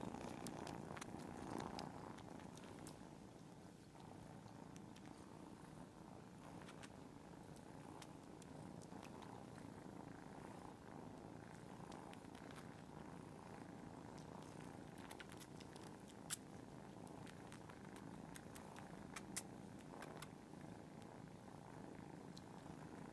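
Several cats purring together in a steady, faint rumble, with two short clicks about sixteen and nineteen seconds in.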